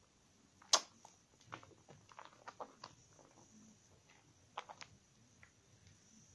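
Hands lathering a soaked bar of 72% laundry soap in thick foam: irregular wet squelches and clicks. One sharp wet smack about a second in is the loudest, then two clusters of smaller squelches.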